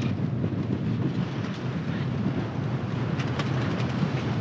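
Wind buffeting the microphone aboard a sailboat under sail: a steady low rush, with a couple of faint clicks about three seconds in.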